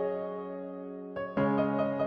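Soft background piano music: held chords that fade slightly, then new notes come in about a second and a half in.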